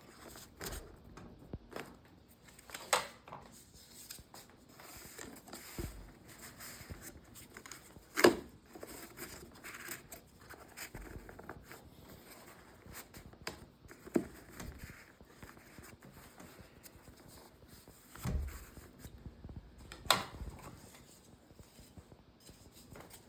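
Workbench handling sounds as shims are worked in under the ties binding a book's spine, tightening the ties to press the leather down: a handful of sharp knocks, the loudest about eight seconds in, between quiet rustling and scraping.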